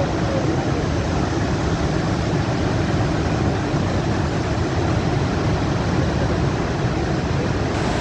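Horseshoe Falls' water pouring into the gorge: a steady, unbroken rushing noise, heaviest in the low end.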